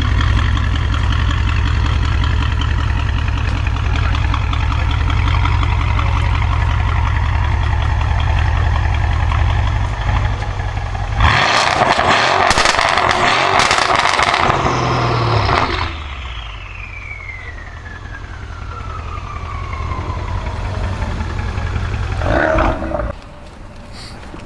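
Twin-turbo V8 of a decatted, pops-and-bangs-tuned Mercedes-Benz S63 AMG idling steadily. About eleven seconds in it is revved hard for some four seconds with crackles and bangs in the exhaust, then cuts off. A turbo whistle follows, falling in pitch over several seconds.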